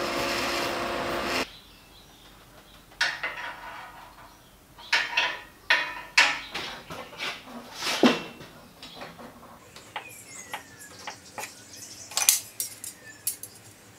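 Welding arc running steadily as steel rod is welded to flat-bar steel, cutting off about a second and a half in. Then a string of sharp metallic clinks and knocks as steel rod and tools are handled on a workbench and at a bench vise.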